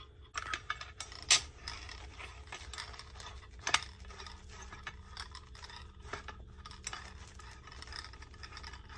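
Metal handle sections of a SUPROCK folding survival shovel clinking and scraping as they are fitted and screwed onto the shovel blade, with two sharper metal knocks, one about a second in and another a few seconds later.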